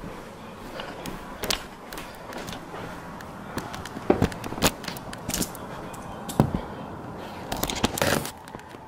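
Handling noise from a phone being moved about while recording, with its microphone rubbing and knocking against clothing: crackling fabric rustle and scattered sharp knocks. The loudest knocks come about halfway through, and a longer scrape comes near the end.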